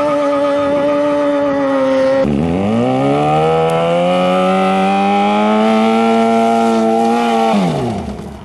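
Yamaha FZ6R's 600 cc inline-four engine held at high revs during a rolling burnout, its rear tyre spinning on the asphalt. The revs dip suddenly about two seconds in, climb back up steadily, then fall away sharply near the end.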